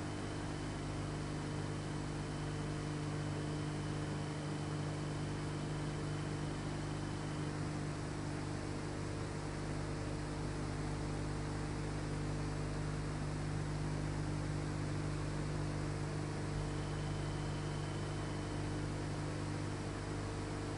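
Steady electrical hum over an even hiss, with no sounds of chopping or other work. A faint high tone in the hiss stops about seven seconds in and comes back near the end.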